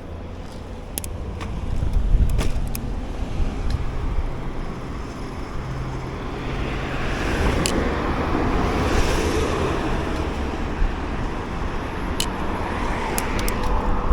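Road traffic heard from a moving e-bike, over a steady low rumble of wind on the microphone. A vehicle passes, swelling over a few seconds in the middle and fading away, with scattered sharp clicks.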